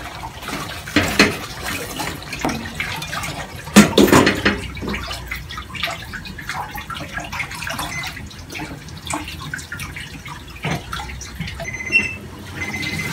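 Water boiling in a stainless steel pot with broccoli in it, a steady bubbling hiss. There is a clatter about a second in and a louder one about four seconds in, as the glass lid is set onto the pot.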